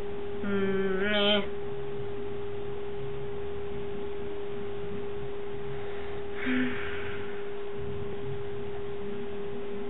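A steady, unchanging pitched tone like an electrical whine sounds throughout. A short hummed vocal sound comes about half a second in, rising at its end, and a brief breathy noise comes around the middle.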